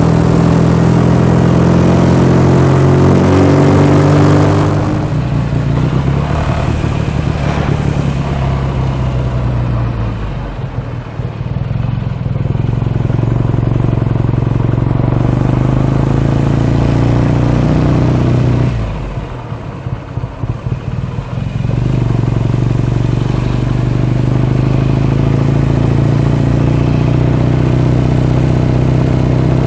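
BSA A65 650 cc parallel-twin motorcycle engine running on the road. Its note drops as the throttle is eased about five seconds in, dips again about ten seconds in and more deeply around twenty seconds in, then comes back and rises in pitch as the bike accelerates near the end.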